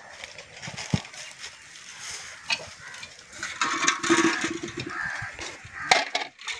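Wooden stick stirring thick ragi kali (finger millet dough) in a metal pot, with a few sharp knocks of the stick against the pot. A farm animal calls briefly near the middle.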